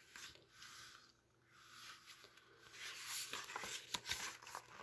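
Pages of a large picture book being handled and turned: soft paper rustling with a few light clicks, busier in the second half.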